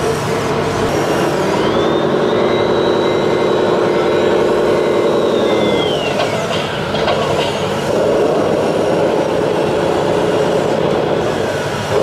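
Radio-controlled model construction vehicles running, with a simulated diesel engine sound that ramps up about a second in and dies away near six seconds, and a high motor whine rising and falling with it. The engine sound picks up again around eight seconds.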